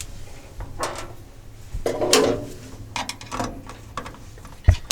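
Tools and parts being handled inside the changer cabinet: a few short scrapes and rattles, then one sharp knock near the end.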